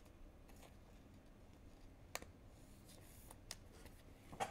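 Near silence with a few faint, sharp clicks, the clearest about two seconds in, from paper trading cards being handled.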